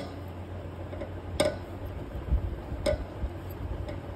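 Sharp little metallic clicks, about one every second and a half, as a knurled brass hose fitting is twisted by hand into the air compressor's filter, with a few dull handling knocks in between.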